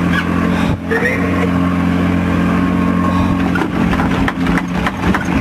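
Fishing boat's engine running at a steady pitch, over the wash of water and wind.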